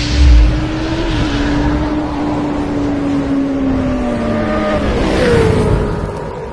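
Motorcycle engine running loud through an SC Project aftermarket exhaust, its note holding steady, sagging slowly, then jumping higher about five seconds in as the throttle is blipped, over a deep low rumble.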